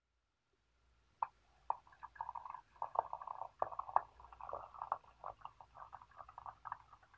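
Hot water pouring into a glass teapot onto loose tea leaves. It starts about a second in with a sharp splash and goes on as an irregular splashing.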